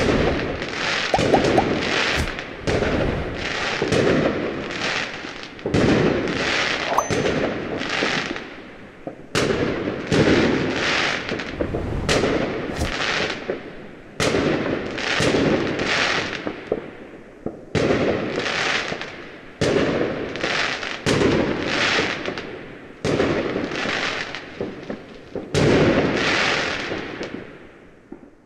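Fireworks going off in a long rapid series of bangs, roughly one every half second to a second, each trailing off before the next. The bangs fade out near the end.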